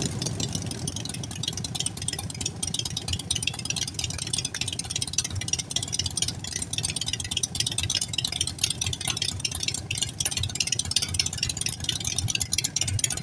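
Two Harley-Davidson Sportster air-cooled V-twins, a 1200cc Forty-Eight and an 883cc SuperLow, idling steadily through aftermarket Vance & Hines exhausts (Short Shots and Big Radius).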